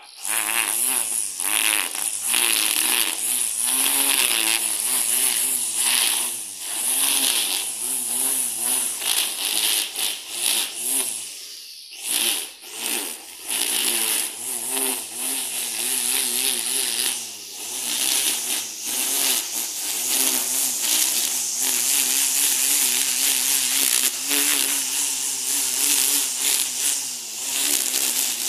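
Corded electric string trimmer running, its motor whine wavering in pitch as the line cuts grass, with a hiss over it. It cuts out briefly a little under halfway through, then runs on.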